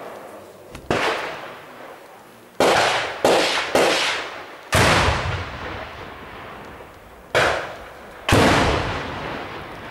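Gunfire in a firefight: seven separate shots at irregular intervals, two of them close together around the middle and two near the end, each trailing off in a long echo.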